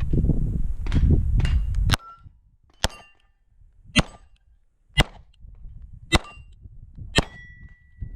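Loud low rumble for about two seconds, then six pistol shots from a Beretta 92 about a second apart, each followed by the ring of a struck steel plate. After the last shot the stop plate rings on as one steady tone.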